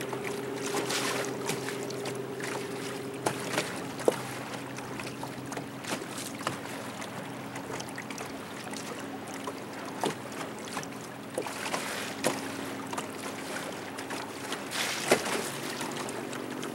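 A small boat's motor running steadily with a low hum, under the lapping of water against the hull. Short sharp slaps of small waves hit the hull now and then, the loudest about fifteen seconds in.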